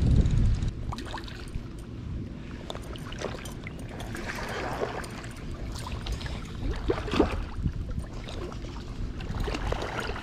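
Shallow creek water sloshing and splashing in irregular bursts around a wading angler's legs as a hooked carp is played in close. Wind buffets the microphone in the first second.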